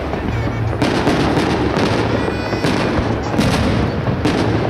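Fireworks display: aerial shells launching and bursting, a run of separate bangs over a continuous crackle.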